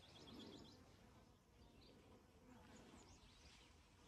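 Near silence: quiet outdoor ambience with faint birdsong, a short trill near the start and a few scattered chirps after, over a faint low rumble.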